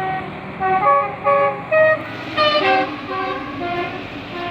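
Basuri 'telolet' musical horn on a bus playing a quick tune of short horn notes, several notes a second, loudest about halfway through, over a steady low hum.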